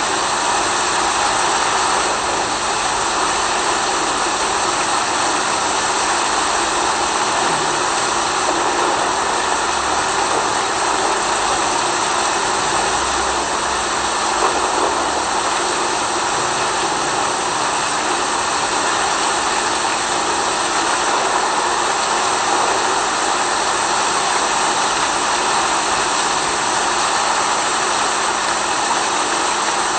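Steady rain: a dense, even hiss with no separate drops standing out, and a faint steady hum underneath.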